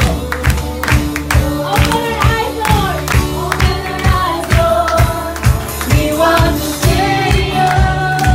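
Live band of drum kit and electric guitar playing an upbeat song to a steady beat, with a group singing along and clapping.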